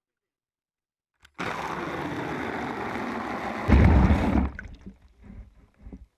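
Water pouring into a bucket straight onto a camera lying in its bottom: a steady rush starting about a second in, then a louder, deeper splash as the water closes over the lens, dying away into small sloshes and drips.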